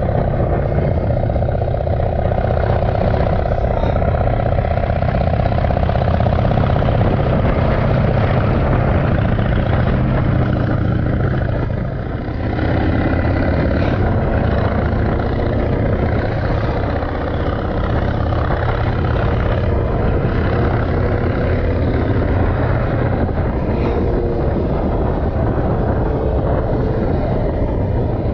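Chopper motorcycle engine running steadily under way, mixed with road and wind noise, with a brief drop in level about twelve seconds in.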